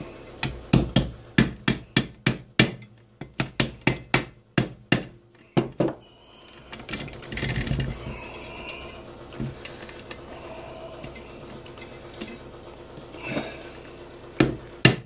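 A hammer taps quickly and lightly on the ends of motorcycle gearbox shafts, about three or four strikes a second, seating the shaft assembly and its bearings down into the crankcase half. The tapping stops for several seconds of quieter handling of the metal parts, then starts again near the end.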